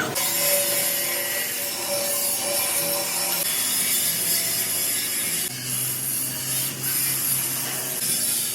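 Workshop power tool cutting or grinding, a steady rasping hiss over a low machine hum.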